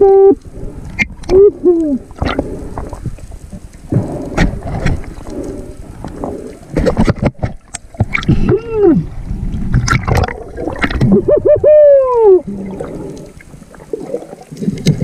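Muffled vocal hoots from a diver underwater, several of them, each rising and then falling in pitch. Sharp clicks and sloshing water noise run between them.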